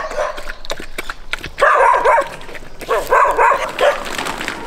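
Dogs barking in two bouts, about a second and a half in and again about three seconds in.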